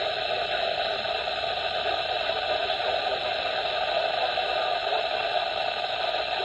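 Steady hiss of radio static with no voice coming through.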